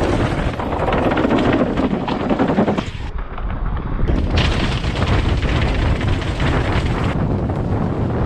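Downhill mountain bike clattering down concrete stairs at speed, a rapid, dense rattle of tyre and frame hitting step after step, over heavy wind rumble on the bike-mounted camera's microphone.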